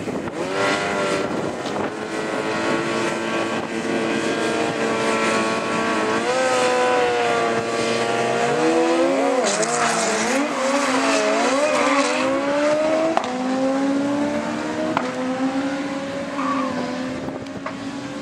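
Two sport motorcycles at a drag-strip start line, engines revved in bursts so the note rises and falls repeatedly. About 13 seconds in they launch, and the engine note climbs steadily as they accelerate away down the strip.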